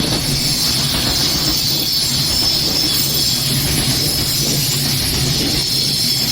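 A train running past at close range, a loud, steady noise with no break.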